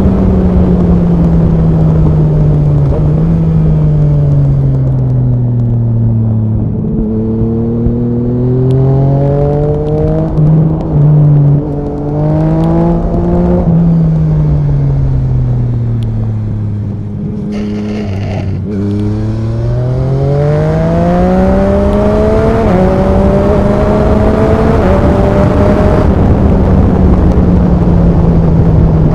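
Yamaha MT-09 SP's three-cylinder engine through an Akrapovic Racing exhaust, ridden hard. The revs drop away on the overrun, climb through a few gear changes, drop again, then climb through more gear changes before holding steady at a cruise for the last few seconds.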